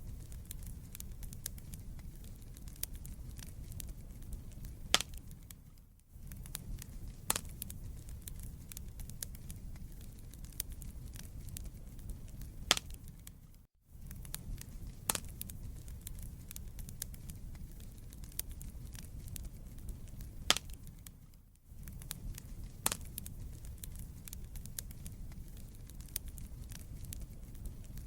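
Wood fire burning in a fireplace: a steady low rumble of flames with scattered sharp crackles and pops as the logs burn. The sound cuts out briefly about every eight seconds.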